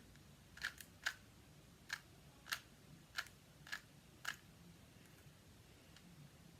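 Plastic 2x2 Rubik's cube being turned layer by layer, about nine short sharp clicks at uneven intervals over the first four and a half seconds, then stopping.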